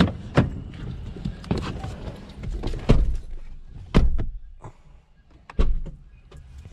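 Car door of a Ford opened and someone climbing into the driver's seat, with a series of knocks and heavy thumps as the door is pulled shut.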